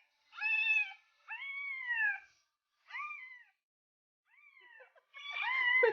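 A cat meowing five times in a row, each meow a pitched call that rises and then falls, the fourth one fainter.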